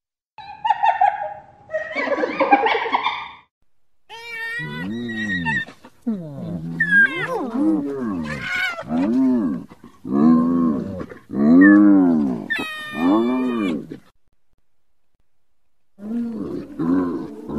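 Spotted hyenas calling. A couple of rough, noisy calls come first. Then a string of pitched calls follows, each rising and falling, about one a second, with some high thin calls among them. After a short pause, a quick run of short calls comes near the end.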